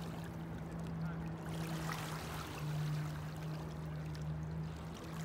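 Shallow water lapping and trickling over pebbles, with a steady low hum underneath that shifts slightly in pitch about two and a half seconds in.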